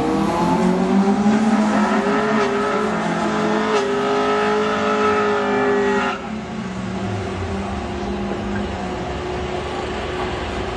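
Honda car engine held at high, steady revs for about six seconds, then dropping off suddenly to a lower, quieter running sound.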